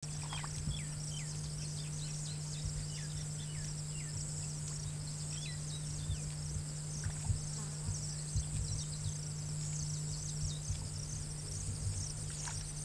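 Forest ambience: a steady high-pitched insect drone with rapid chirping beneath it, and scattered short whistled calls that fall in pitch. A constant low hum runs underneath, with occasional low thumps.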